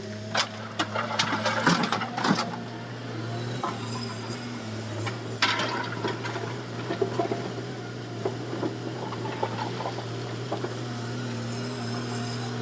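Komatsu hydraulic excavator's engine running at a steady hum, with a cluster of clanks and knocks in the first couple of seconds and another sharp knock about five and a half seconds in.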